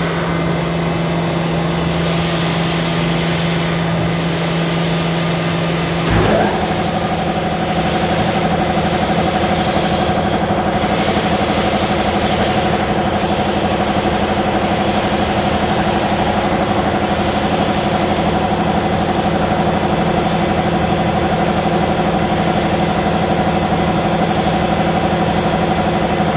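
A machine running steadily with a hum made of several steady tones. About six seconds in, a short knock sounds and the hum settles onto a new, steady set of tones. A high whine drops away in pitch a few seconds later.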